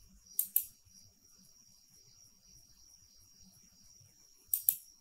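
Computer mouse clicked twice in quick succession (a double-click), about half a second in and again near the end, over a faint steady high-pitched whine.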